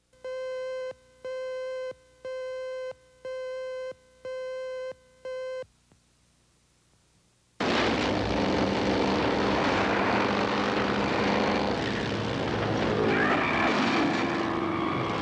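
Six evenly spaced electronic beeps of one steady tone, about one a second, like a videotape leader's countdown tones. After a short gap a loud film soundtrack cuts in suddenly: a noisy rush of a vehicle chase and crash, with engines whining near the end.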